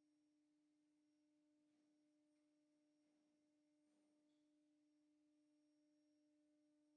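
Near silence, with only a very faint steady hum-like tone.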